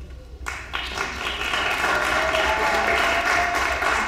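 Audience applauding, starting about half a second in and building up.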